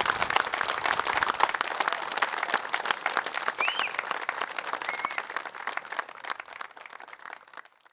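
Crowd applauding, a dense patter of many hands clapping, with a couple of brief high-pitched calls from the crowd partway through. The applause fades out over the last few seconds.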